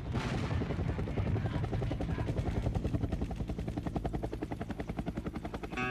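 Helicopter rotor chopping in a rapid, even beat.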